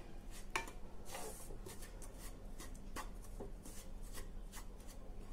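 Spatula scraping and stirring crumbly besan (gram flour) as it roasts in a dark-coated kadhai. A string of faint, irregular scrapes.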